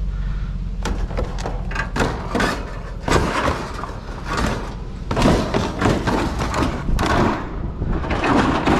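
Repeated knocks and thuds over a steady low rumble.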